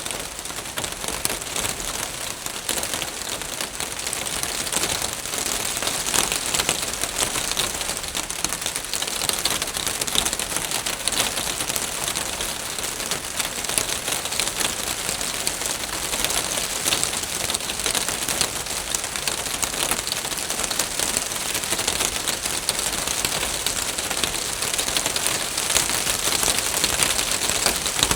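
Rain falling on a roof: a dense, steady patter of countless drops with a crackly edge.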